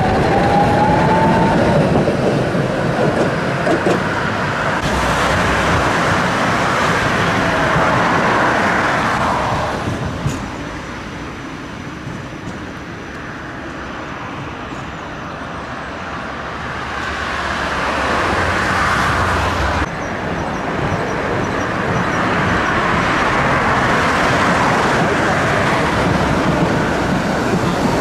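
Tram running on rails, with a rising whine in the first couple of seconds. The running noise is loud for about ten seconds, eases off, then builds up again from about seventeen seconds in.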